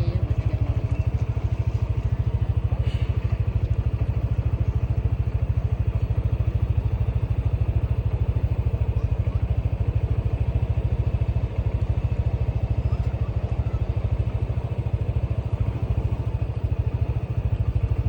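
An engine running steadily with a low, even throb.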